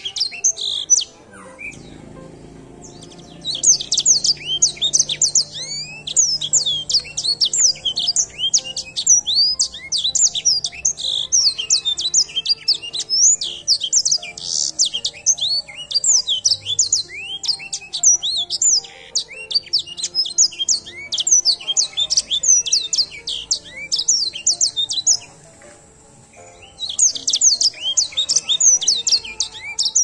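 Edel sanger finch singing a long, fast song of high chirps and sweeping notes. It starts about three seconds in, breaks off for a moment near the end, then picks up again.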